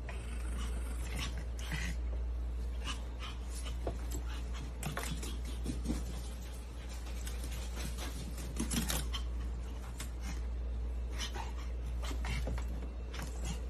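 Affenpinschers playing and scuffling, making scattered short, sharp dog sounds over a steady low hum.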